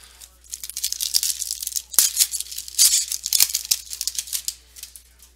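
Crinkling and rustling of a foil trading-card pack wrapper as it is torn open and handled: a dense run of crackles from about half a second in, fading out near the end.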